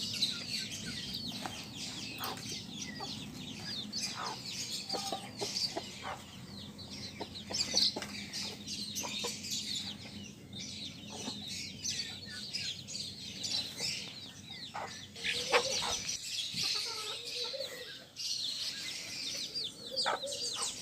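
A flock of chickens calling together: many overlapping high, short calls with lower clucks mixed in. A low steady hum underneath fades out about two-thirds of the way through.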